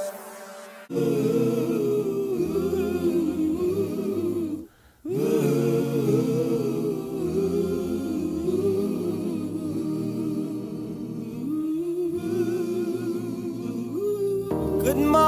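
Wordless a cappella humming, voices singing a slow melody in harmony. It starts about a second in, drops out completely for a moment just before the five-second mark, then carries on.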